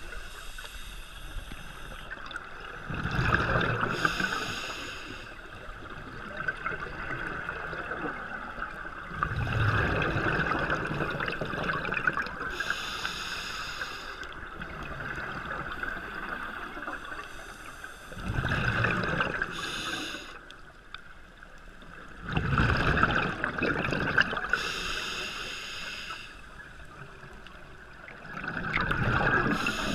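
Scuba diver breathing through a regulator underwater: a rushing gurgle of exhaled bubbles every five to nine seconds, alternating with a hissing inhalation through the regulator, over a faint steady hum.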